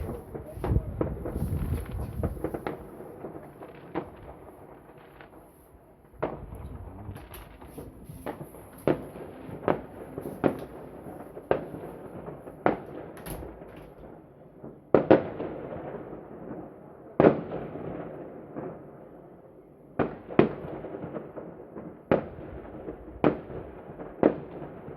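Fireworks shells bursting one after another with sharp bangs and echoing rumbles, a dense volley in the first two seconds, then single bangs about every second.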